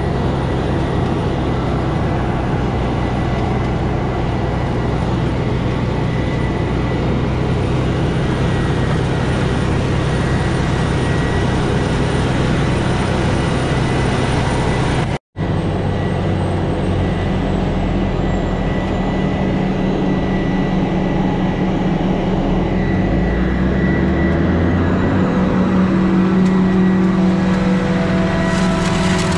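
Dump truck engine running steadily, heard from inside the cab, together with a forage harvester running alongside as it chops corn for silage. There is a brief break about halfway through. Later the engine pitch rises for a moment, and a stronger hum builds near the end.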